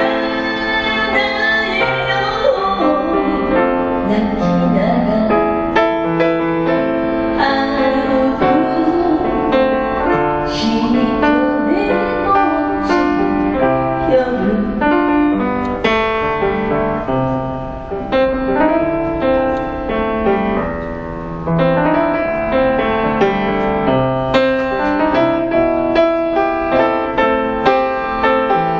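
A song performed with a singing voice over piano accompaniment. The voice is heard mostly in the first half, and the piano carries on alone in steady rhythmic chords near the end.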